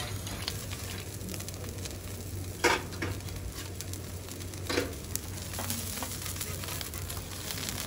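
Thick steak sizzling on a steel teppanyaki griddle, with two sharp clinks of steel spatulas against the griddle, a couple of seconds apart, the first the louder.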